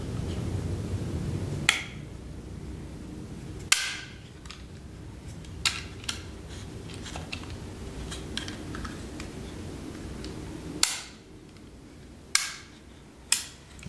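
Disassembled SIG P320 pistol parts being handled and fitted together: the metal fire control unit going into a different grip module, giving several sharp clicks a second or two apart with fainter ticks between.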